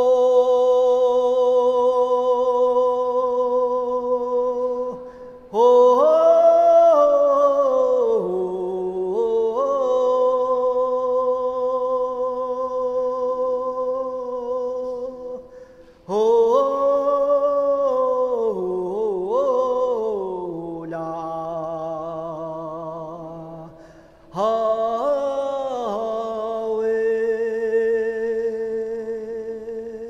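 A single unaccompanied voice singing slow, long held notes in four phrases, each opening with an upward slide.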